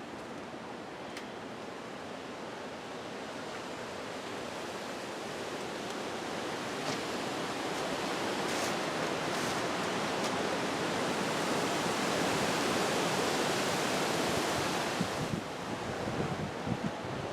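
Hurricane-force wind gusting, a steady rushing that builds over about twelve seconds and then eases near the end.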